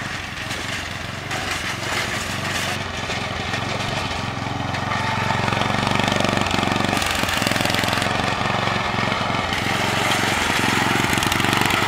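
Small engine of a riding lawn mower built into a drag racer, running steadily and growing louder as the mower drives closer. A thin high whine comes in a few seconds in and drops out twice.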